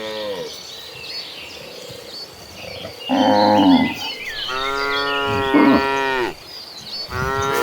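Cows mooing: a deep moo about three seconds in, a longer moo right after it, and another starting near the end. Faint high chirping runs underneath.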